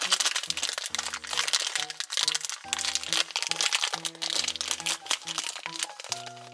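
Thin black plastic blind bag crinkling and crackling as it is pulled open by hand, over background music.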